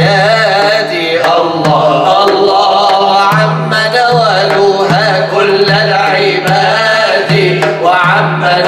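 A man singing an Arabic nasheed in a long, ornamented melodic line, accompanied by regular beats on a hand-held frame drum.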